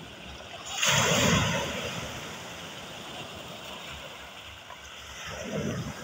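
Waves breaking and washing over a pebble beach. A loud surge of surf comes about a second in and slowly fades, then a smaller one comes near the end.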